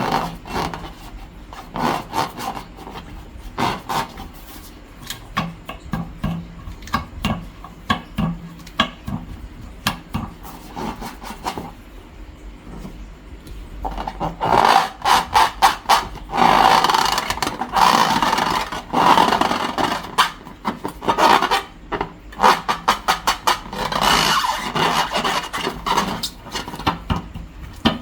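Hands working long balloons and slime: rubbing, scraping and crackling, with scattered clicks at first and denser, louder rubbing through the second half.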